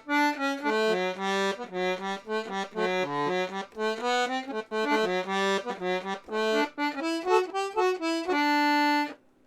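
Serenellini two-row C#/D three-reed (LMM) button accordion playing a quick tune of short notes, with lower notes sounding beneath the melody, ending on a long held chord near the end before stopping.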